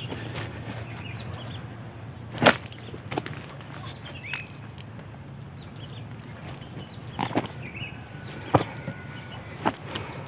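Hand digging tool striking and scraping soil: a few sharp knocks, the loudest about two and a half seconds in, then several more in the second half, with light rustling between them.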